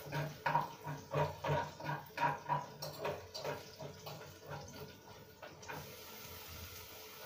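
Green grams being tipped and spooned from a container into a pot of frying onion and garlic: short knocks and scrapes about three a second, then an even sizzle from the pot from about six seconds in.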